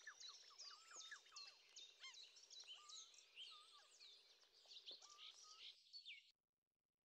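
Faint chorus of many birds chirping and twittering together, a dense overlap of quick high chirps and short sweeping calls. It cuts off suddenly about six seconds in.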